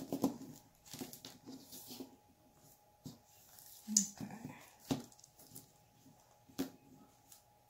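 Smooth stones being picked up, set down and slid about on a paper-covered cutting mat: scattered light knocks and rustles, the sharpest about four and five seconds in.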